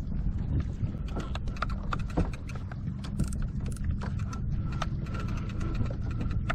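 Electric deep-drop fishing reel running, a steady mechanical hum with many small clicks and ticks.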